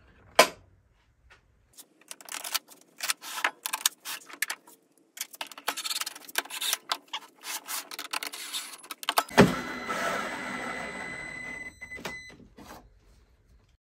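Clicks and knocks of plastic housing parts and bolts being handled, then a cordless drill starts suddenly and runs for about three seconds with a steady whine, driving one of the long bolts that hold the Festool CT Mini dust extractor's housing together.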